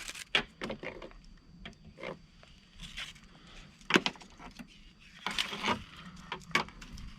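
Wire rigging cable and hand tools being handled as the cable end is cut and its strands spread open: irregular metallic clicks and taps with a short scrape about five seconds in.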